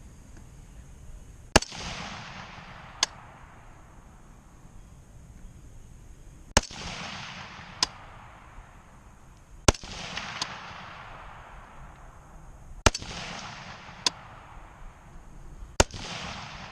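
Five single rifle shots from an AR-15 chambered in 7.62x39, fired slowly a few seconds apart for a five-round group. Each report trails off in a long echo, and a fainter sharp click follows about a second after most shots.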